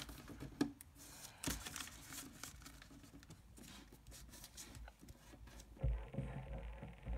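A thin sheet of origami paper being folded and creased by hand: faint scattered rustles, crinkles and soft clicks of the paper, with a few soft low knocks near the end.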